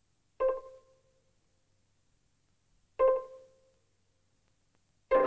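Sparse background music: three single pitched notes about two and a half seconds apart, each starting sharply and fading away within about half a second, the last joined by lower held notes near the end.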